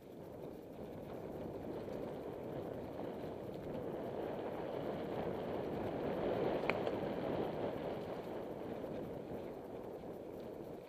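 Mountain bike descending a dirt singletrack trail: a steady rush of knobby tyres rolling over dirt and wind over the camera, growing louder toward the middle, with one sharp click about two-thirds of the way through.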